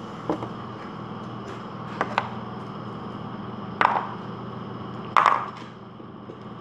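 Hollow red plastic egg shells set down and knocked onto a tabletop: about five short sharp clacks, the last the loudest, with a pair close together about two seconds in. A steady low hum sits underneath.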